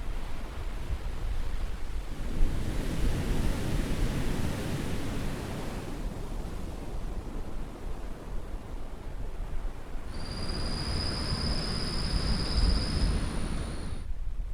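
Caribbean surf washing ashore in two slow swells. A high, steady buzz joins the second swell, and the sound drops away suddenly near the end.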